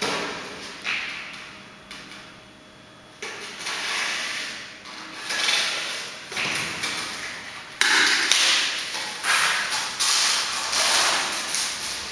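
Sheets of green laminate underlay being handled and cut on a concrete floor: a run of scraping, rasping strokes, getting louder and closer together in the second half.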